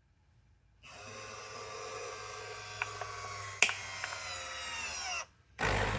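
Nescafé Dolce Gusto capsule coffee machine's pump starting up and buzzing steadily, its pitch sinking slightly, with a few sharp clicks. It cuts out for a moment near the end, then comes back louder and noisier as it pushes water through the pod.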